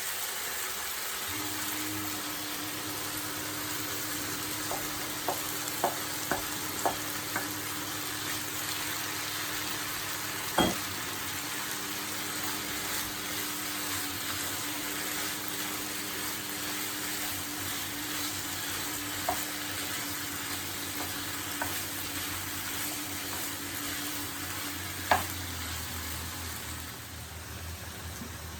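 Bell peppers sizzling as they fry in a pan, with a steady low hum underneath. A few light clicks and two sharper knocks come from a utensil against the pan.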